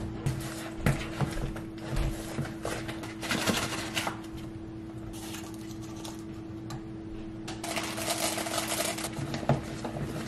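Baking prep: a plastic measuring cup scooping and tapping between a jar and a mixing bowl, a spice can handled, and a wooden spoon stirring batter in the bowl, heard as a run of clicks, taps and scraping bursts over a steady low hum.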